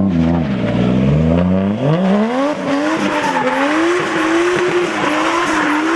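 Toyota JZX90's engine revving, its pitch climbing over the first couple of seconds and then held high, wavering in quick swells as the throttle is worked. Tires squeal as the car slides in a drift.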